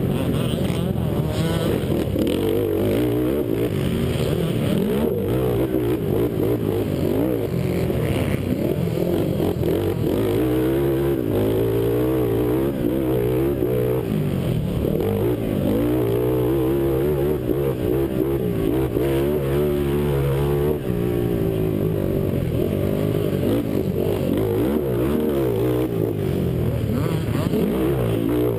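Honda race quad's engine heard from the rider's helmet, revving hard under race throttle, its pitch constantly rising and falling as the rider accelerates, shifts and backs off through the corners.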